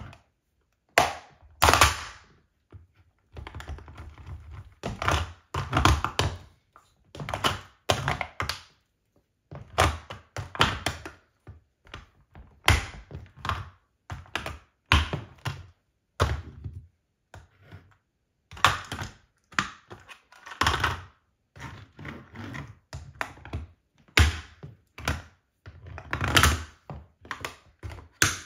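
Plastic toy car being crushed under stiletto heels on a hardwood floor: irregular thunks, creaks and clicking cracks as the plastic body gives way, with short quiet gaps between bouts of pressing.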